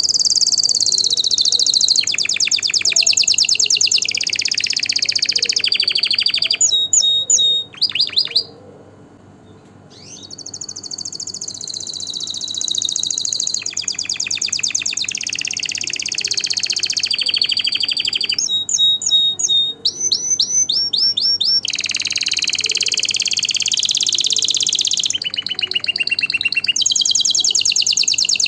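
Domestic canary singing a long, varied song of rapid high trills and rolls. It breaks off once for about a second and a half, about a third of the way in, and is broken up in places by quick runs of downward-sweeping whistled notes.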